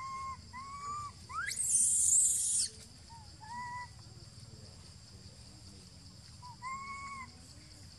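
Baby macaque crying: short whimpering coos, each a clear note that rises and falls, repeated every few seconds, with a loud shrill scream about a second and a half in that lasts about a second.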